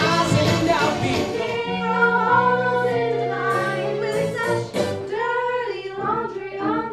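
A group of young women singing a show song with instrumental accompaniment. The first second or so is dense and busy, and then they hold long notes.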